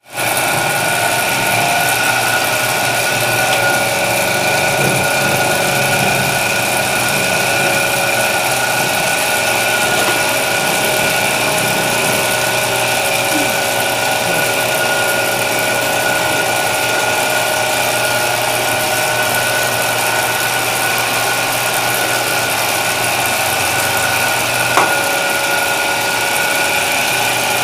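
Motor-driven, belt-driven dough roller running steadily as dough is fed through its rollers: an even mechanical hum with a steady whine. One sharp click near the end.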